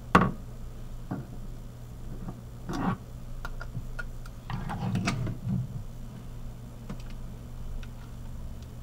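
Light clicks and knocks of clarinet parts being handled and fitted together during assembly, scattered and irregular, with a sharper click right at the start. A steady low hum runs underneath.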